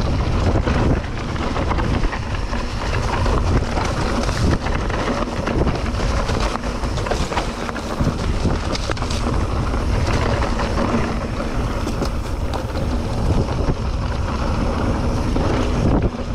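Mountain bike riding down a steep, technical dirt descent: tyres rolling and the bike rattling and knocking over the rough ground, with wind rushing over the microphone.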